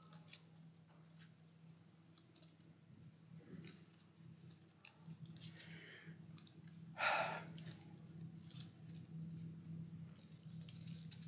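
Bible pages being leafed through at a lectern microphone: faint paper clicks and rustles, with one louder swish about seven seconds in, over a steady low hum.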